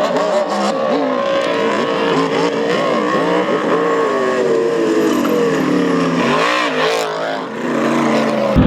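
Off-road race vehicle engines running hard, their pitch wavering up and down with the throttle, with a dip and climb in pitch about two-thirds of the way through.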